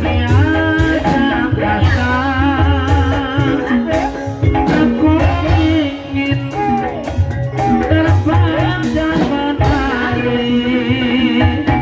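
Gending ebeg music: a wavering melody sung with heavy vibrato over a gamelan-style ensemble, with held metallophone notes, a low recurring boom and regular hand-drum strokes.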